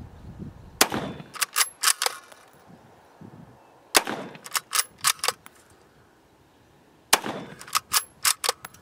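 Three shots from a Mossberg MVP 5.56 bolt-action rifle, about three seconds apart. After each shot comes a quick run of four or so metallic clicks as the bolt is worked to chamber the next round.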